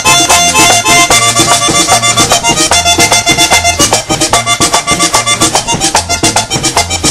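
Live merengue típico band playing an instrumental passage: button accordion carrying the melody over a quick, steady percussion beat and held bass notes.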